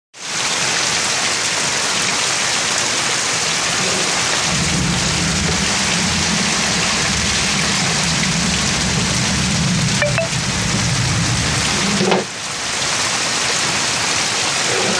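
Heavy monsoon rain pouring steadily onto a flooded street, a loud even hiss. A low rumble joins it from about four seconds in and fades out around twelve seconds.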